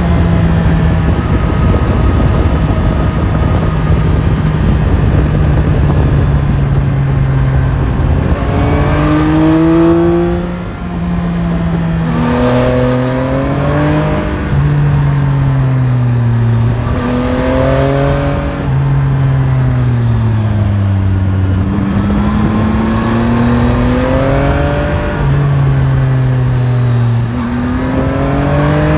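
Yamaha Tracer 9 GT's CP3 three-cylinder engine on the move, revs climbing and falling repeatedly with several gear changes, over a steady rush of wind noise.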